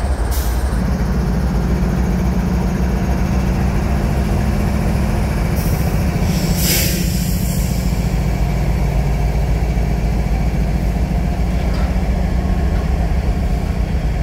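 Diesel-electric freight locomotives, a GE ES44AC and a CN unit, running with a steady low engine drone. There is one brief sharp noise about halfway through.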